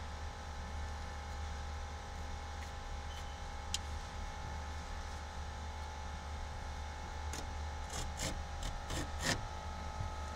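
Steady low electrical hum, with a single click about four seconds in. From about seven to nine seconds in come a handful of short, scratchy rasps as a utility razor knife slices through two overlapping layers of carpet-style headliner at a seam.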